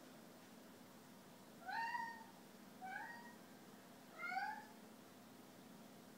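Snow Bengal cat meowing three times, each call rising in pitch.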